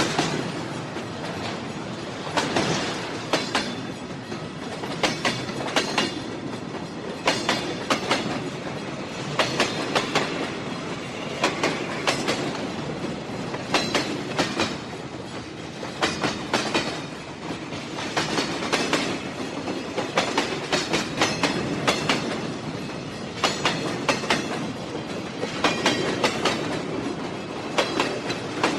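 Train running along the track, its wheels clicking over the rail joints in clusters of clicks about every two seconds over a steady rumble.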